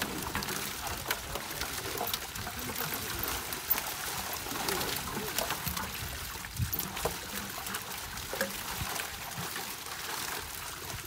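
Shallow pond water splashing and trickling as fish are worked out of a hand-held net, with many scattered light knocks and slaps.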